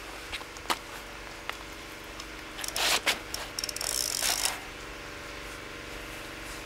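A large wels catfish being laid down and handled on a fabric unhooking mat: a sharp click about a second in, then loud rustling and scuffing of fish and mat in two spells between about three and four and a half seconds in.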